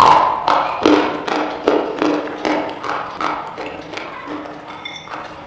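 Close-miked chewing of something hard and brittle: a run of sharp crunches, about two to three a second, loudest at the start and gradually fading.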